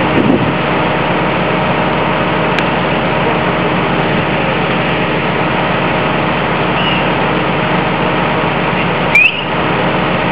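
A heavy engine idling steadily. About nine seconds in, a single sharp crack with a short rising squeal.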